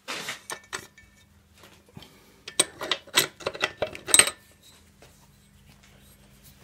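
Metal clinking and clattering as the reverse lever mechanism is worked loose and lifted out of the top of a Reliant Robin four-speed gearbox. A few sharp clinks come at the start, then a quicker run of clatters from about two and a half seconds in, the loudest near its end, over a faint steady hum.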